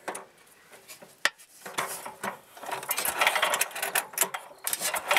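Loose metal rattling and clinking as the crooked bolt and spacer on the end of a mower engine's shortened shaft are wobbled by hand. The shaft end was re-drilled off-centre, so the bolt sits loose. After one sharp click about a second in, a quick, irregular clinking starts about two seconds in and grows busier.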